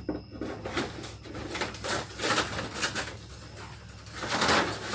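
Irregular crunching and scraping of old, hardened insulation and roof debris being pulled out and handled, in a series of uneven bursts.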